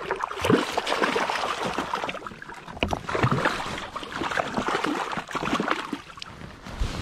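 A lightning (golden rainbow) trout on a rope stringer thrashing and splashing in shallow water against shoreline rocks, in repeated surges that die down near the end.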